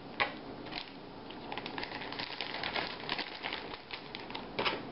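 Clear plastic food-storage bag crinkling and rustling as pieces of seasoned pickled pork are handled into it, with scattered crackles and a sharper one about a quarter second in and another near the end.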